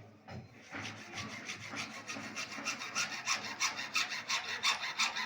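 Rapid rhythmic scraping strokes of a hand tool, sawing or filing at pipe, about four strokes a second, starting about a second in and growing louder.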